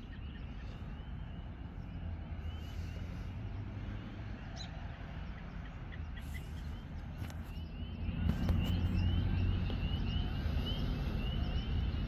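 A running series of short, high chirping calls from the woods, thickening into a dense chorus over the last few seconds, over a steady low rumble that grows louder about eight seconds in.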